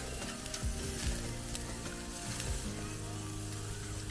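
Hamburger patties sizzling on a metal grill basket over a wood campfire: a steady frying hiss with a few faint ticks.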